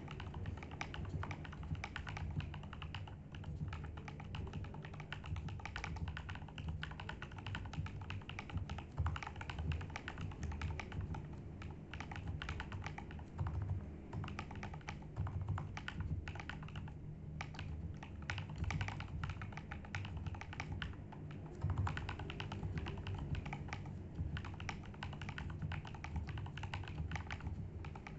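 Typing on a KBD67 Lite mechanical keyboard with Durock POM Piano linear switches and PBT keycaps: a rapid, continuous stream of key clacks.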